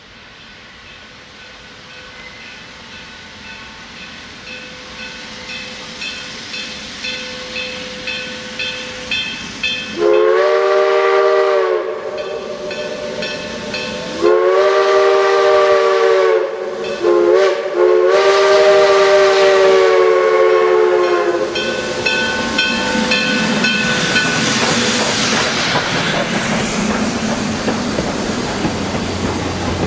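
A 2-8-0 steam locomotive, Great Smoky Mountains Railroad No. 1702, approaches with its exhaust beats growing louder, about two a second. About ten seconds in it sounds its multi-note steam whistle in the long, long, short, long grade-crossing signal, then passes with a loud hiss of steam and a rumble of the train.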